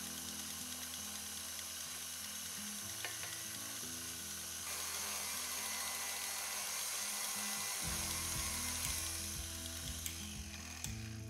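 KitchenAid stand mixer running with its wire whisk beating cream in a steel bowl: a steady motor whir with a hiss, getting louder about five seconds in. Background music plays underneath.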